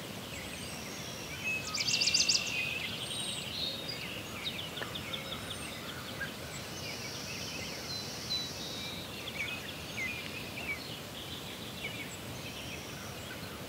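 Several songbirds chirping and trilling over a steady background hiss, with a loud rapid trill about two seconds in.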